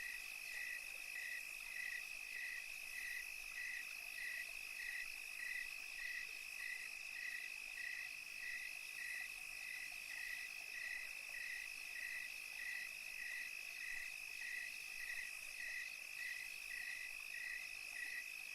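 Steady night chorus of calling insects or frogs: a continuous high trill with a regular chirp repeating a little under twice a second.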